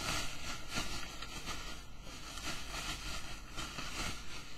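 Bubble wrap crinkling and rustling as it is pulled off a plastic headphone stand: a steady crackle of many small ticks.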